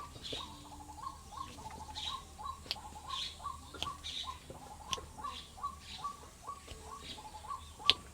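Rapid rhythmic hand tapping on a head during a head massage: a quick, even patter of short hollow pops, two to three a second, with a few sharper slaps, the loudest near the end.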